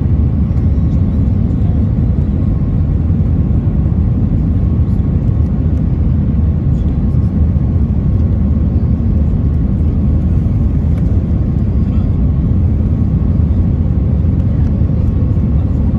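Steady low cabin roar of an Airbus A320-family airliner on final approach with flaps extended, engine and airflow noise heard from inside the cabin, with a faint steady whine over it.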